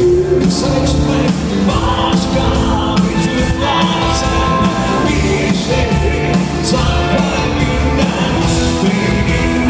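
Live rock band playing, with drums and guitars, and a man singing lead vocals over it, heard from the audience in a concert hall.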